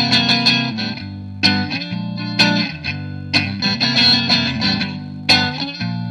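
Electric guitar played through a small practice amp picked up by microphones, with a lightly distorted tone. Chords are struck every second or two, with quicker picked notes between them.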